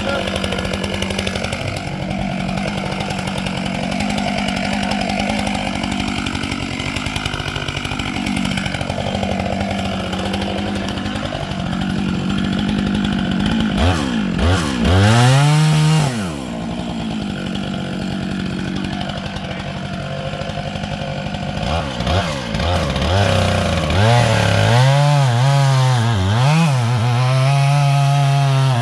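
Chainsaw running at low speed, then revved sharply to full throttle for about two seconds around halfway before dropping back. It revs up again several times near the end and holds at high speed.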